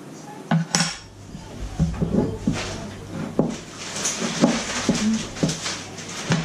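A spoon or spatula knocking and scraping against a mixing bowl in quick, irregular clinks while icing sugar and water are stirred together.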